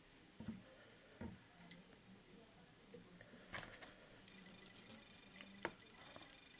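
Near silence, with a few faint, short clicks and rustles of fingers handling the dubbing and thread on a hook in a fly-tying vise.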